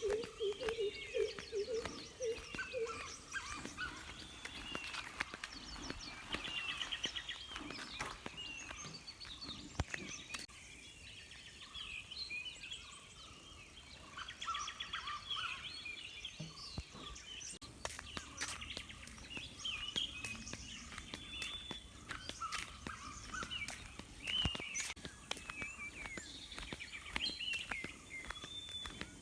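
Chorus of several songbirds chirping and trilling, with short whistled notes overlapping throughout. A low, quickly repeated call is heard in the first few seconds, and scattered light clicks run through it.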